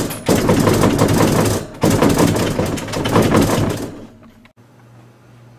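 Rapid, loud banging and rattling on a closed interior door from someone locked inside, stopping about four seconds in.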